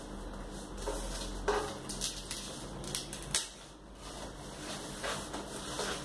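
Handling noises from unpacking and setting up speakers: scattered clicks, light knocks and short rustles of packaging, over a faint steady low hum.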